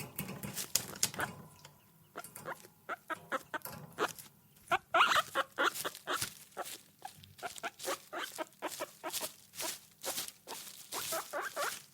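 Guinea pig squeaking in many short, repeated calls, with a louder run of squeals about five seconds in, mixed with small clicks and rustles.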